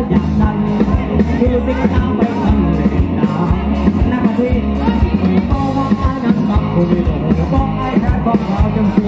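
Live rock band playing loud through a PA system, with electric guitars and drums keeping a steady beat under a voice singing into a microphone.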